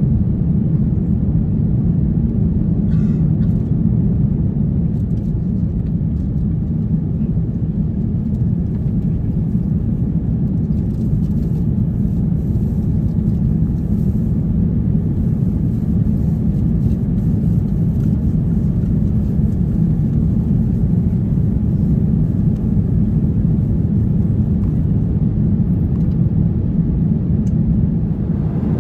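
Steady low cabin rumble inside an Airbus A350-900 airliner, holding at an even level throughout.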